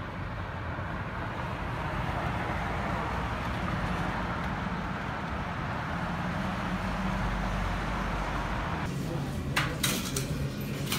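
Steady noise of city street traffic. About nine seconds in it gives way to coffee-shop clatter, with a few sharp clinks of cups and dishes.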